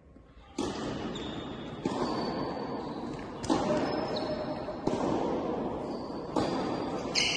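A series of sharp tennis ball impacts, about one every second and a half, each followed by a long echo in a large indoor tennis hall.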